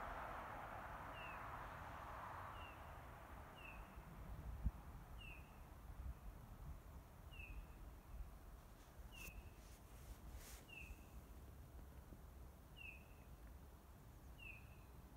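Faint bird calls: a short falling chirp repeated at uneven gaps of about one and a half seconds, over a soft hiss that fades away in the first few seconds.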